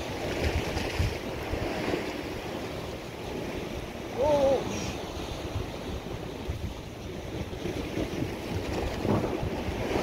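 Sea surf washing against a rocky shore, with wind buffeting the microphone in low rumbling gusts. About four seconds in, a brief pitched sound rises and falls for under a second, the loudest moment.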